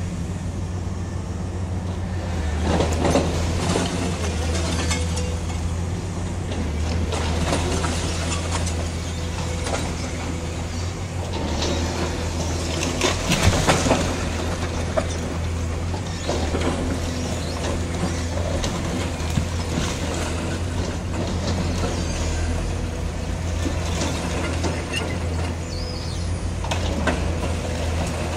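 A long-reach demolition excavator's engine running steadily under load while its arm breaks and drags masonry rubble, with irregular crashes and scraping of broken brick and concrete. The loudest burst of crashing comes about halfway through.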